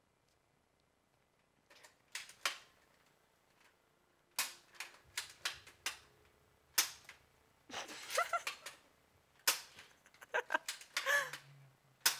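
Nerf dart gun being worked and fired: sharp plastic clicks and clacks in irregular clusters, starting after a short quiet opening.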